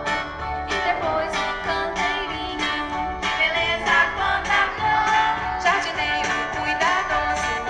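Children's song playing: a singing voice over a steady beat.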